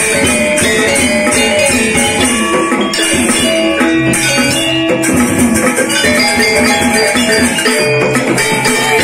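A Lombok Sasak saron gamelan ensemble playing: bronze metallophones and kettle gongs ringing out interlocking notes over a barrel drum, with a steady high metallic shimmer.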